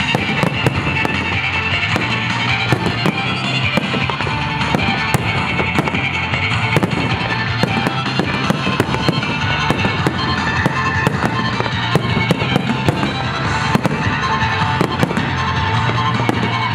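Fireworks display: a dense, near-continuous run of bangs and crackling from aerial shells bursting several at a time, with music playing underneath.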